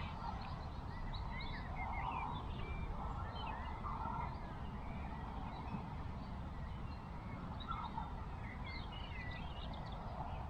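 Birds singing and calling: many quick high chirps and warbles, with rounder, lower calls every second or two, over a steady low wind rumble on the microphone.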